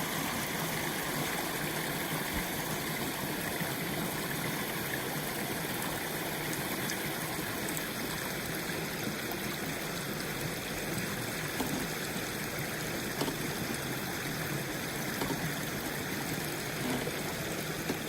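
Water running steadily through a hole punched in a beaver dam, an even stream-like rush with a few faint ticks.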